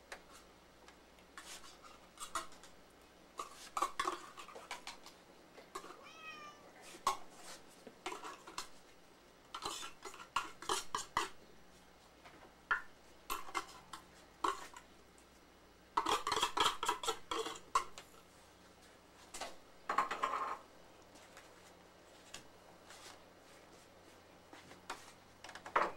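Domestic cats meowing among clinks and clatter of metal food bowls. The clatter comes in spells, busiest about two-thirds of the way through, with a longer meow near the end.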